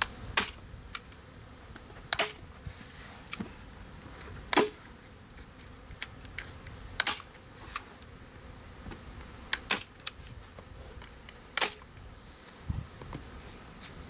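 A staple gun snapping staples, about a dozen sharp clicks at irregular intervals, some in quick pairs, fastening the wrap to a beehive. Honey bees buzz faintly in the background.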